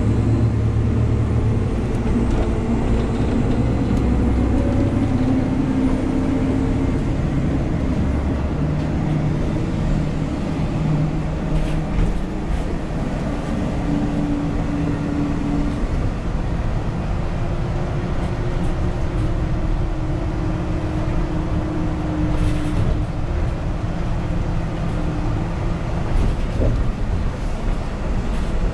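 Cabin noise of an articulated transit bus under way: a steady low rumble of engine and road noise, with drivetrain tones that shift in pitch now and then, and a couple of faint clicks.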